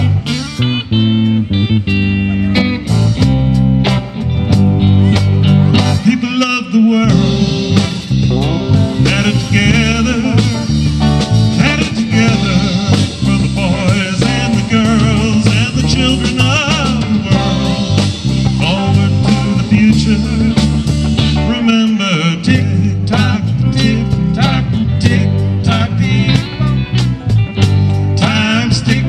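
Live rock band playing an instrumental passage: electric guitars over bass guitar and a drum kit. The bass and drums drop out briefly twice, about a quarter of the way in and again about three quarters of the way through.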